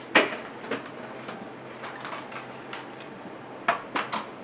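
Sharp knocks and clatters of food-prep utensils and equipment: a loud knock right at the start, a lighter one just after, and three quick knocks near the end, over a steady low room hum.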